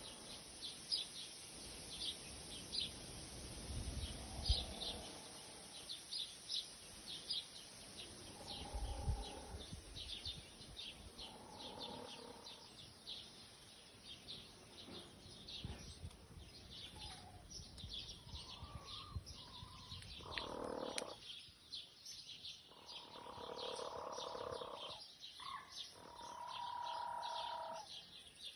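Small birds chirping steadily in short high notes, with soft drawn-out calls from resting chickens several times, longer and more frequent in the second half; the hens' sound is the kind that can pass for snoring, a sign of a hen fully relaxed.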